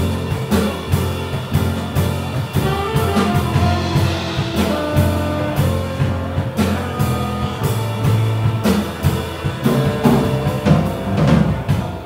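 Live jazz quartet playing: double bass walking a low line, a drum kit keeping time with regular cymbal strokes, and piano and tenor saxophone on top.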